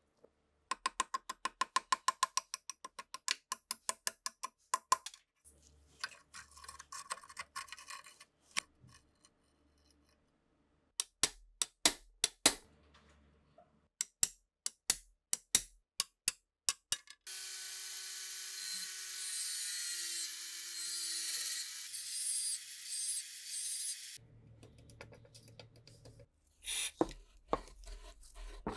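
Rusty steel parts of a STEN Mk2 submachine gun being worked with hand tools: a fast run of sharp metal clicks, then scraping, then a series of separate sharp taps. A steady hiss follows for several seconds, with more metal clicks near the end.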